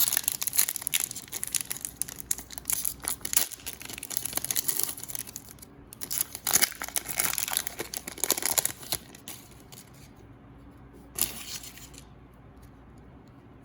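Plastic trading-card pack wrapper being torn open and crinkled by hand: a dense run of crackling rustles with a short break partway, then one last brief crinkle about eleven seconds in.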